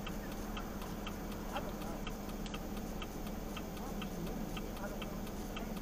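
Vehicle indicator relay clicking evenly, about three clicks a second, over the steady hum of an engine heard from inside the cab.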